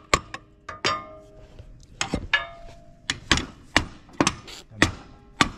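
Hammer striking a steel punch about ten times at an uneven pace, some blows followed by a short metallic ring. The punch is driving a stuck shaft out of a bearing on an old tractor disc.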